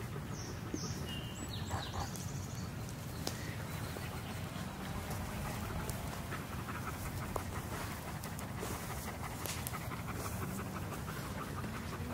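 German shepherd dog panting steadily, with scattered light clicks throughout.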